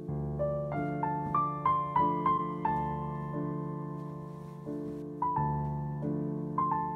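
Background piano music: a slow melody of single notes that climbs and then steps back down over held low chords.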